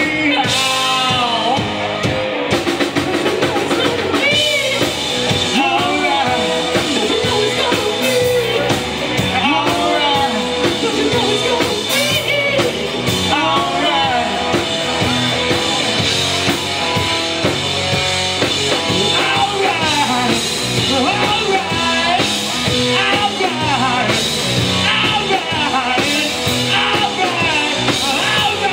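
Live rock band playing: drum kit, guitar and sung vocals, dense and continuous.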